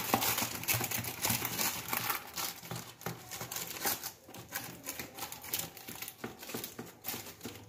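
Butter paper lining the tray crinkling and rustling as a silicone spatula and fingertips press the warm patisa mixture flat, in a dense run of small crackles that grows quieter toward the end.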